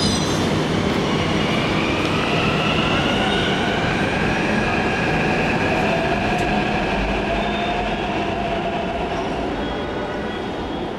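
Metro train running, heard from inside the car: a steady rumble of wheels on track with a high whine that rises slightly about two seconds in and then holds. The sound eases off gradually near the end.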